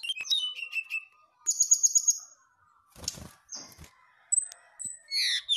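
Brown-chested jungle flycatcher singing: high chirps and falling whistles, a quick run of repeated high notes, a short flutter about three seconds in, and louder falling notes near the end.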